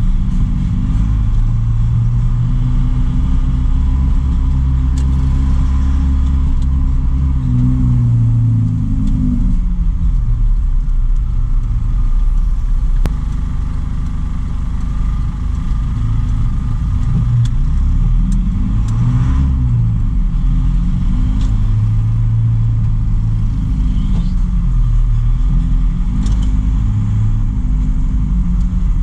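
Truck engine running while driving: a low, steady drone whose pitch falls and rises several times with engine speed, notably around a third of the way in, in the middle, and near the end.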